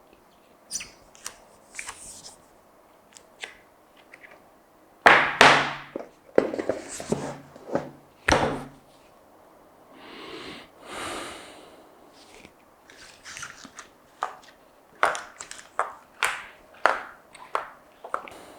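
Handling of phone boxes and packaging in unboxing: scattered clicks and taps, a few louder thunks about five and eight seconds in, and two short sliding swishes a little after the middle.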